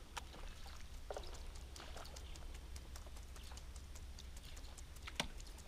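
Faint, irregular light clicks and taps of fishing rod and reel handling as a lure is retrieved, with one sharper click about five seconds in.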